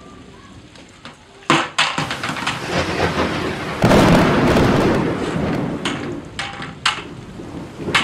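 A large white plastic bucket knocks against wet concrete and is tipped over, then rolls with a loud rumble that starts suddenly and fades over a couple of seconds, with sharper knocks of the plastic before and after. Rain falls on the concrete throughout.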